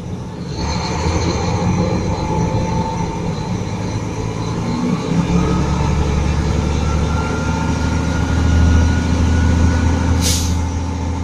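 Volvo FM 440 truck's D13 straight-six diesel revving from idle up to full-throttle speed, around 1,650 rpm, and holding steady there with the PTO engaged and no PTO engine speed limit yet set. A short hiss of air sounds about ten seconds in.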